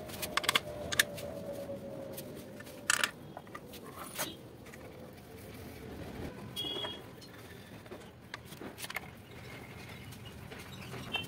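Scattered metallic clicks, taps and knocks of a T-handle socket wrench being set on and turned against the bolts of a scooter's plastic CVT cover as it is refitted, the sharpest about a second and three seconds in.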